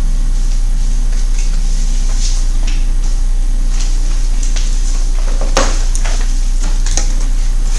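Steady low electrical hum under faint rustling and light taps, with one sharp knock about five and a half seconds in as the camera is handled.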